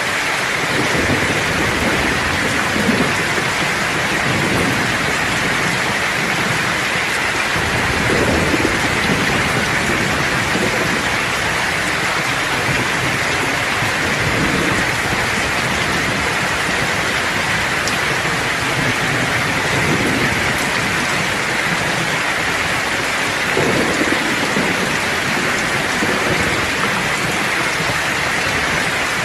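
Steady rain falling, a dense even hiss, with low rumbles of distant thunder swelling up several times, most clearly about a third of the way in and again near the end.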